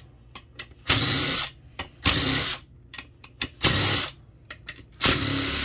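Power tool spinning a 10 mm socket on a long extension, backing out bolts on a Honda B7TA automatic transmission: four short runs of about half a second each, about a second and a half apart, with small metal clicks between them.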